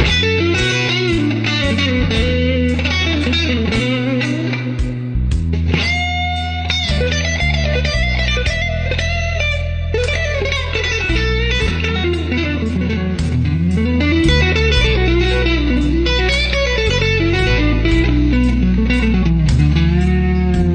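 Electric guitar playing through a digital effects unit, with bent and sliding lead notes over a steady low bass line.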